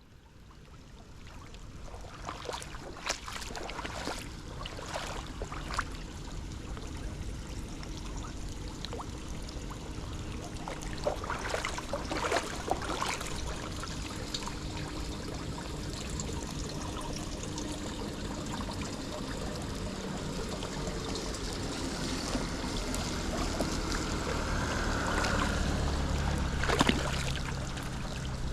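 Floodwater running and trickling into a blocked street drain as the leaves and debris over it are cleared, with scattered knocks and scrapes, several of them a few seconds in and a cluster about midway. A low rumble builds toward the end.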